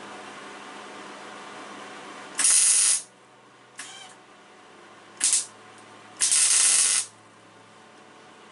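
Electric arc welder laying short bursts of weld: four hissing, crackling arcs of under a second each. This is the sound of nuts being welded onto broken studs so that the studs can be turned out.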